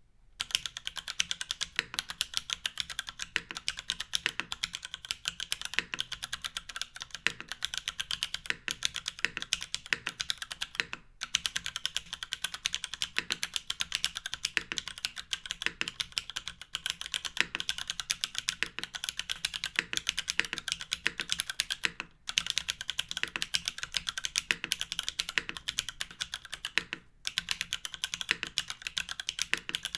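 Fast, continuous typing on a Constance TKL custom mechanical keyboard with lubed, filmed Cherry MX Black linear switches under GMK keycaps. The typing starts right after a short silence and breaks off briefly about eleven, twenty-two and twenty-seven seconds in.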